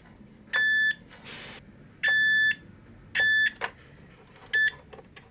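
Multimeter continuity beeper sounding four times in uneven lengths, one very short, as the test probes touch and leave the terminals. The beep signals a closed connection between the power supply's earth and ground terminals, showing the ground is not floating.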